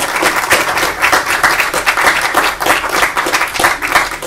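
Audience applauding at the end of a talk, with dense, steady clapping.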